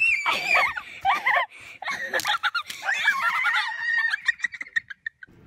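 A chicken squawking, mixed with children's excited high-pitched shrieks and shouts, ending in a run of short quick calls.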